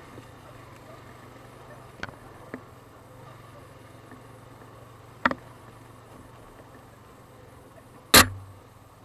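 ATV engine running with a steady low hum as the machine rides a rough dirt trail, with four sharp knocks as it jolts over bumps; the loudest knock comes near the end.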